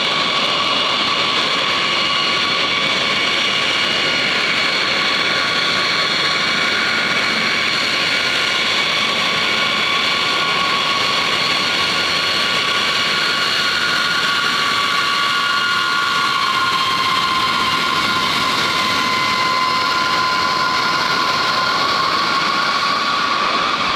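Jet engines of a B-52H Stratofortress taxiing: a steady whine with several high tones over a rushing noise. Near the end one tone dips and then rises.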